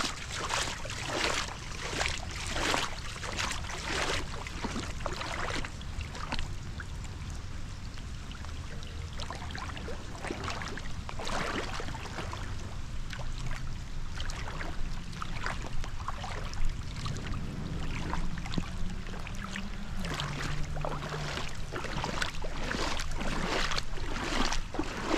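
Floodwater flowing and splashing, with irregular splashes over a steady low rumble.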